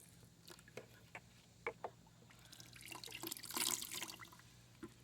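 Faint dripping and splashing of hot rinse water off small engine parts being washed, with a few small clicks and a louder splash about three and a half seconds in.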